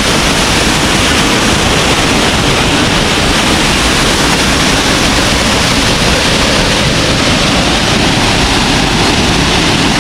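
Waterfall: falling water rushing loudly and steadily, with no breaks or changes.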